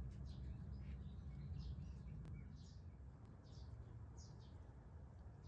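A small bird chirping over and over, short high calls repeating every second or so, over a steady low rumble.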